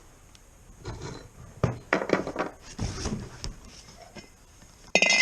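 A piece of wood being set against a skid plate, with irregular knocks and rubbing as it is handled into place, and a louder, short scrape near the end.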